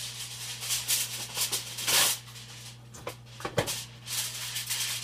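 Aluminium foil being handled and crinkled to line a pan: irregular rustling and crackling, with a couple of louder crackles about two seconds and three and a half seconds in.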